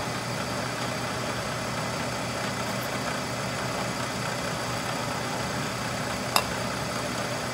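Milling machine running steadily, its spindle turning an end mill over a stainless steel workpiece, a constant mechanical hum and whir. A single sharp click about six seconds in.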